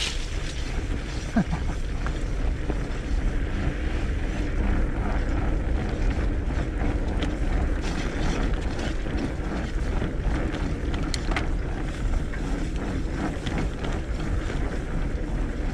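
Fatbike riding over a muddy, leaf-covered dirt trail: 4.6-inch 45NRTH Dillinger 5 studded fat tires rolling through mud and dry leaves with a steady rumble, many small crackles and rattles, and wind on the action camera's microphone.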